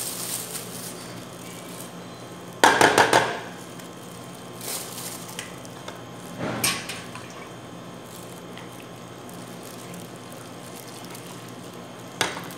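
A stainless steel mug and plastic funnel clattering against a plate: a quick rattle of knocks about three seconds in, then a few softer knocks and a sharp clink near the end. Lemon juice is poured from the mug through the funnel into a plastic bag.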